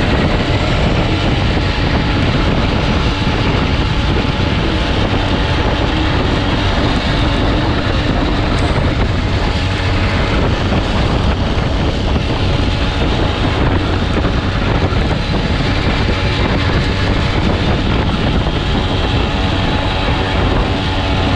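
Derny pacing motorbike's small engine running steadily just ahead, under heavy wind rush on the microphone.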